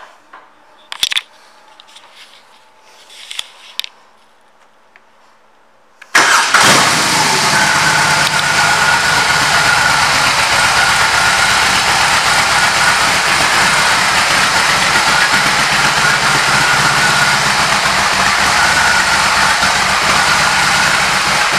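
A few faint clicks, then the BMW R 18 Classic's 1802 cc boxer twin is started about six seconds in and settles into a steady idle.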